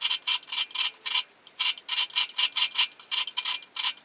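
Hand file scraping across the bevel of a steel knife blade in short, quick strokes, about four or five a second, with a brief pause about a second and a half in. This is the careful shaping of the blade's grind close to its final form.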